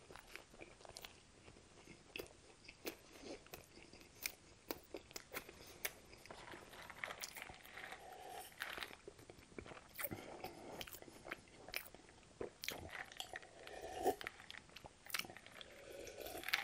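Close-miked eating sounds: a mouthful of fried chicken burger being chewed, with many quick wet clicks and smacks of lips and tongue. In the second half come the sips and swallows of drinking from a paper cup.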